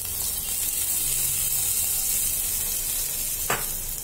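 Hot ghee tempering with mustard seeds, dals and curry leaves sizzles as it is poured onto cold curd rice: a steady hiss that eases toward the end. A short knock comes near the end.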